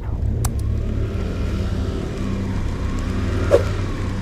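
Aprilia SXR 50 scooter engine running with a steady low drone, picking up right at the start. A short click about half a second in and a sharp knock near the end stand out over it.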